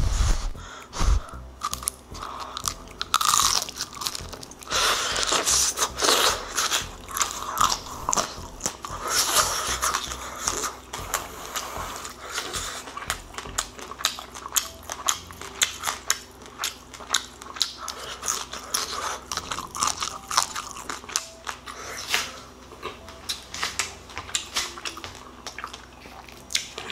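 Close-up biting and chewing of air-fried rice-paper-wrapped chicken: the crisp rice paper shell crackles in many sharp crunches, densest in the first half and thinning out later.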